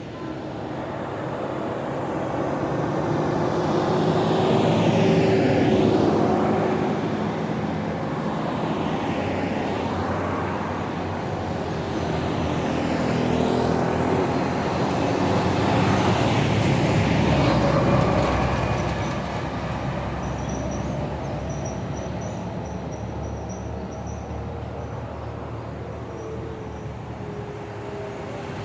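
Road traffic: several motor vehicles drive past one after another, each rising and falling as it goes by. The loudest passes come about five seconds in and again around fourteen and eighteen seconds.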